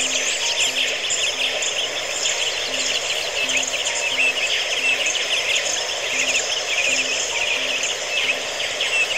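Dense, busy chirping of many small birds, with a short low note repeating about twice a second; the chopper's engine is not heard running.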